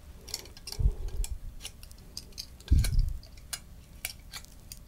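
Metal binder clips clicking and tapping as they are unclipped from a glass-and-film exposure sandwich and set down, a string of light sharp clicks. Two dull thumps come about one second and about three seconds in.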